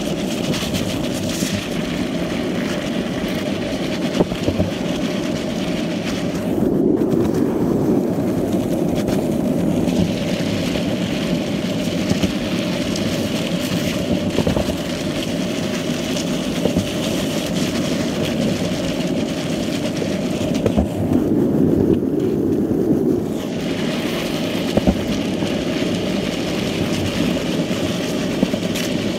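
Skateboard wheels rolling at speed over asphalt, ridden sitting down, street-luge style: a steady rumble with a hum, and a few sharp clicks and knocks from cracks and bumps in the path. Twice the rumble deepens and the hiss drops away for a couple of seconds as the surface changes.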